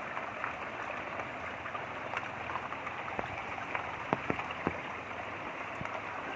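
Light rain falling, with scattered drips over a steady wash of running water; a few louder drops land about four seconds in.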